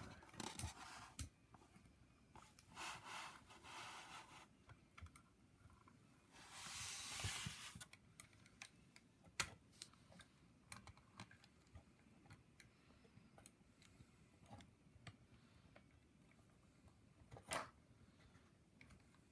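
Scattered small clicks and light rustling from handling a plastic and die-cast action figure and its parts, with a louder rustle about seven seconds in.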